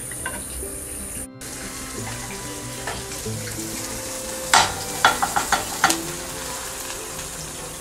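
Omelette sizzling lightly in a nonstick frying pan, with a metal spatula knocking and clicking against the pan as the omelette is slid out onto a plate: one knock, then a quick run of five clicks a moment later. Soft background music plays under it.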